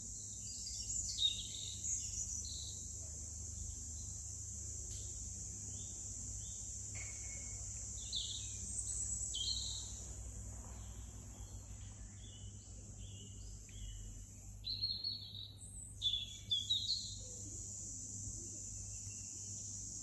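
Songbirds chirping and calling in the treetops over a steady high insect trill. The calls come in clusters about a second in, around eight to ten seconds, and loudest near fifteen to seventeen seconds.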